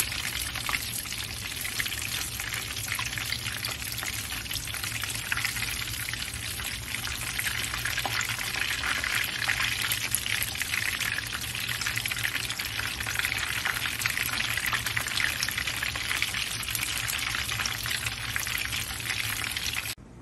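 Spring rolls deep-frying in hot oil in a pan: a steady sizzle full of fine crackles, cutting off suddenly near the end.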